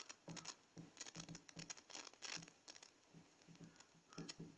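Marker pen writing on a whiteboard: a faint, irregular run of short strokes as letters are drawn.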